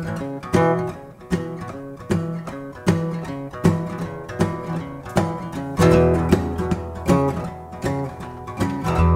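Acoustic guitar strumming chords in a steady rhythm, with an accented strum about every three quarters of a second. Fuller low notes fill in from about six seconds in.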